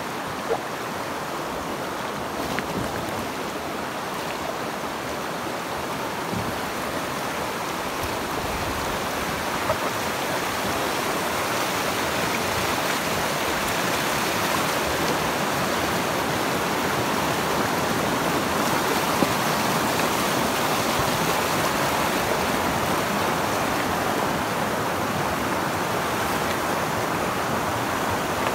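Shallow river water rushing over rocks in a riffle: a steady wash that grows louder after about eight seconds.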